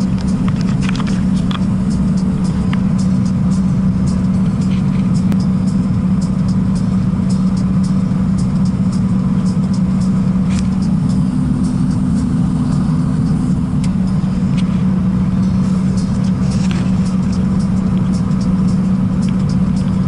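Scania P380 dump truck's diesel engine running at a steady cruise, heard from inside the cab as a constant low drone with road noise and scattered light clicks and rattles.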